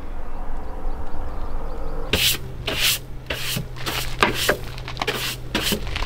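A towel rubbing briskly against skin and clothes, drying off after a shower: a run of short rustling strokes, about two a second, that starts about two seconds in after a low rumble.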